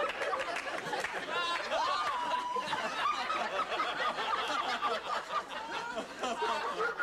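Laughter: a studio audience laughing, with a man's giggling and whoops on top.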